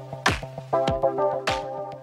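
Electronic background music: held synthesizer chords over a steady beat.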